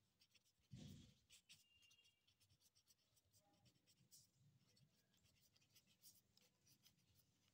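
Faint scratching of a ballpoint pen writing on ruled notebook paper, a rapid run of small strokes. A soft low thump comes about a second in.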